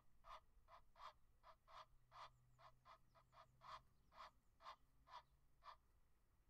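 Egyptian goose calling in a fast series of short, harsh honks, about three a second, which stops shortly before the end.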